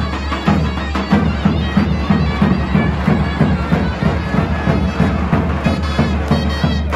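A davul and zurna ensemble playing Turkish folk dance music: a zurna carries a wavering melody over a steady beat from large double-headed davul drums.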